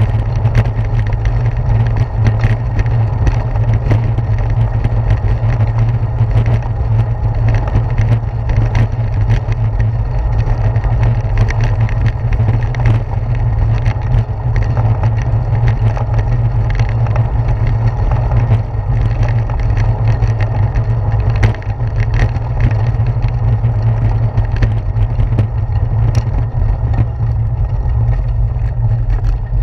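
Steady low rumble of wind and road vibration picked up by a handlebar-mounted GoPro as a bicycle rolls over brick pavers, with frequent small rattles and knocks from the bumps.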